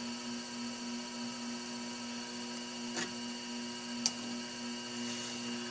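Electric potter's wheel running with a steady motor hum while a bowl is trimmed on it, with two short clicks about a second apart near the middle.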